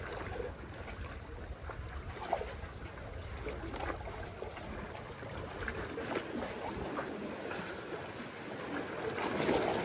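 Seawater washing and sloshing among breakwater tetrapods, with wind rumbling on the microphone.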